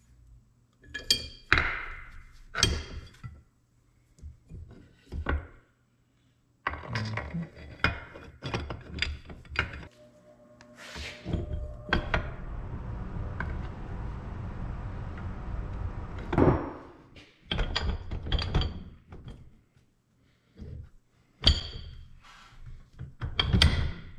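Metal parts of a Dana 300 transfer case clunking and clinking as the front bearing retainer is worked onto the case by hand, with a series of sharp knocks, the loudest near the end. A stretch of steady hiss comes through the middle.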